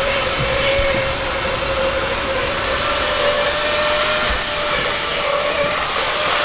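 TOMIX N-gauge motor unit running in a model train, giving a steady whine with a hiss over it: the abnormal, mosquito-like noise of this power unit.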